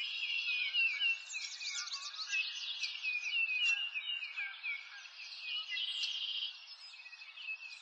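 Several birds chirping and singing at once in a dense, busy chorus, with repeated fast trills among the chirps, as on a birdsong ambience track.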